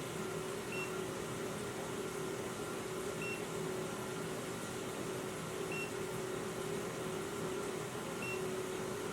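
Carbon monoxide detector giving a short, high electronic beep about every two and a half seconds, four times, over a steady low hum.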